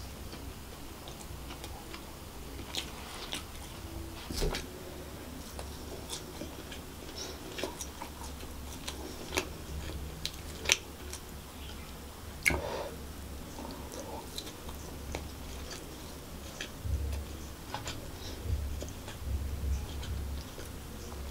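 Close-miked chewing of a mouthful of chicken fried rice, with scattered sharp clicks and scrapes of a metal spoon scooping rice off a plastic wrapper; two louder clicks come about halfway through.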